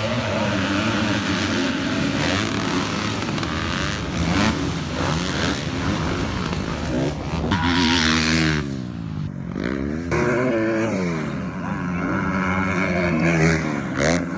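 Motocross bikes racing on a dirt track, their engines revving hard with the pitch climbing and dropping again and again as riders open and shut the throttle. The sound breaks off sharply about ten seconds in and picks up again.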